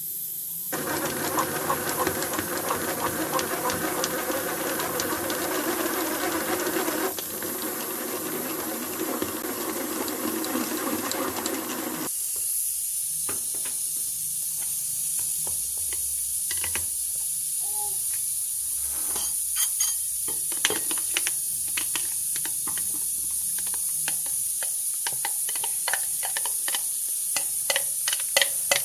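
Pressure cooker on a gas flame hissing steadily with steam. For about the first twelve seconds a rougher rushing noise sits over it and then stops suddenly; after that come quick clicks and taps that grow busier near the end.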